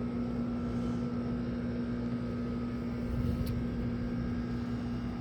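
A small electric motor or appliance running with a steady low hum, one unchanging tone over an even whir.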